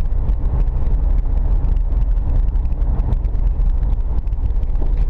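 A car driving on a rough, patchy rural road: a steady low rumble of engine and tyres, with frequent small clicks and rattles throughout.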